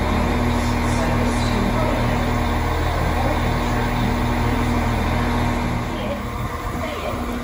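West Midlands Railway Class 196 diesel multiple unit standing at the platform, its underfloor diesel engines running at idle: a steady low hum that eases slightly near the end.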